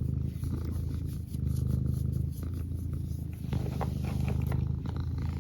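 Domestic cat purring close to the microphone, a steady low rumble that swells and eases about once a second.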